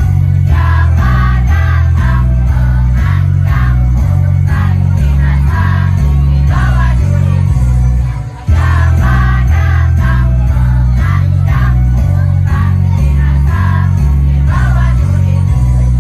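A school choir of young students singing over loud, bass-heavy backing music, with a brief drop in the music about halfway through.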